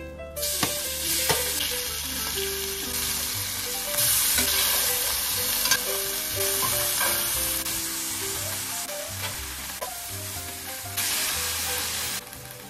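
Cubed pork belly frying in a stainless steel skillet, a loud even sizzle. It starts about half a second in, grows louder around four seconds in, and falls off shortly before the end.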